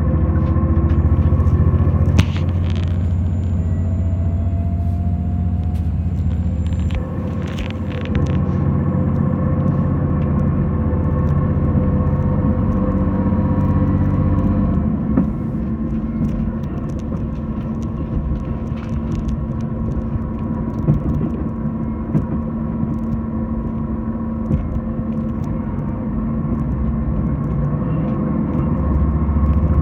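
Diesel train heard from on board, running steadily: a low engine hum over the rumble of the running gear, with a few light clicks. About halfway the deep hum drops away, and it returns near the end.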